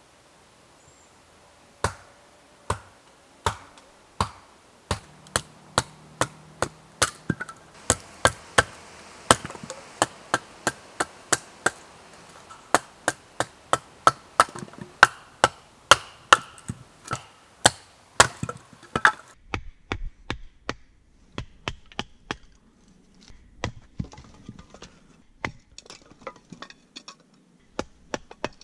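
Wooden baton knocking on a knife driven through a stick, batoning kindling: a run of sharp wooden knocks that starts about two seconds in and quickens to about two a second. After about twenty seconds the knocks give way to lighter cracks and clicks as the wood splits.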